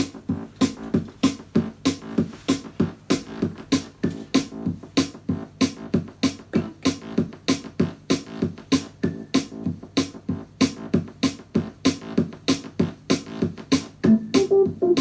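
Synth-pop film score music: an electronic drum groove of about three to four hits a second over a synth bass line, with a new melodic line entering near the end.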